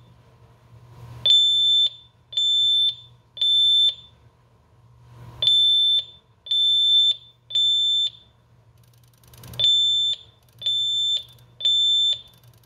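Honeywell alarm panel's built-in sounder beeping a fire alarm in the temporal-three pattern: three high, steady beeps, a pause, then three more, repeating three times. The pattern signals a fire alarm, here set off as a fire panic test.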